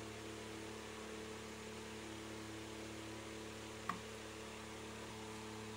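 Steady low electrical hum, with a single light metallic click about four seconds in as the beveled gear is set down onto the stand mixer's gear shaft.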